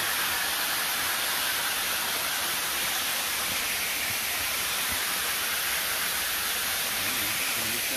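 Steady rushing hiss of falling water from a small woodland waterfall.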